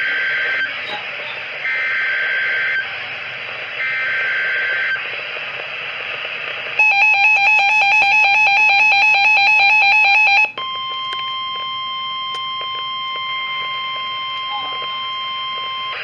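Reecom NOAA weather alert radio receiving a tornado warning. Over radio hiss come the last two of three buzzing digital header bursts, each about a second long. Then, about seven seconds in, the radio's own loud rapid alarm beeping runs for about four seconds, followed by the steady 1050 Hz weather-radio warning tone.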